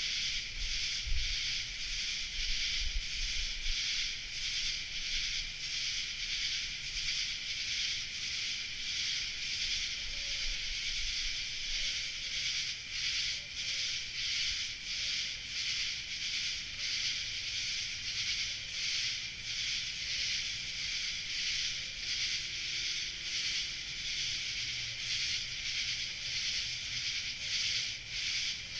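Night insect chorus of summer cicadas and similar singing insects: a dense, high buzzing with a steady pulsing rhythm.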